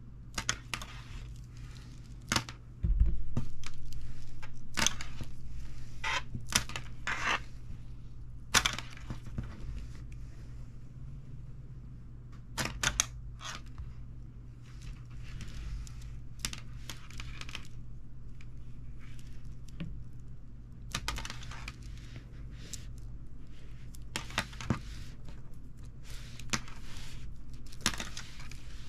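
Plastic coil springs handled on a wooden tabletop: scattered clicks, taps and light rustles, some in quick clusters, over a steady low hum. A low thud comes about three seconds in.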